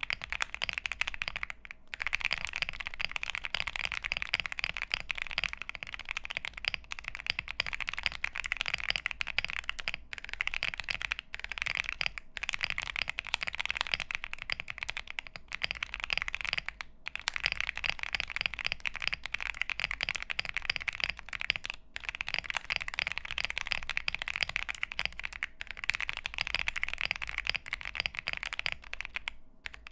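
Continuous fast typing on a Monsgeek M1 mechanical keyboard with an aluminium case, polycarbonate plate, lubed Akko V3 Cream Blue tactile switches and PBT keycaps: dense key clicks, with brief pauses a handful of times.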